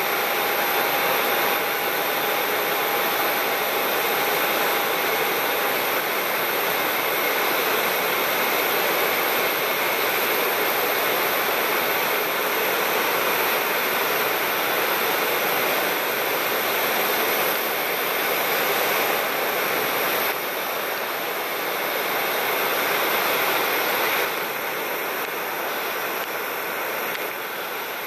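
ATR turboprop airliner's engines running as it taxis: a steady rushing hiss with a faint steady whine over it in the first few seconds. The level drops slightly twice in the second half.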